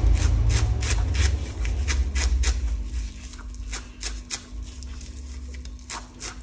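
Kitchen knife slicing through a tightly rolled bundle of pumpkin leaves held in the hand, a short crisp cut about three times a second. A low rumble underneath fades about halfway.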